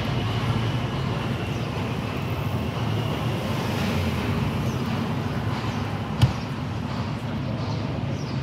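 Steady street traffic noise with a low rumble from passing vehicles. A single sharp knock stands out about six seconds in.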